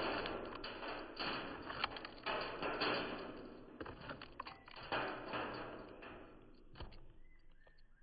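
Blue jay feeding at a seed feeder: scattered taps and knocks of its beak and feet among the seed, over a hiss of rustling noise that fades away near the end.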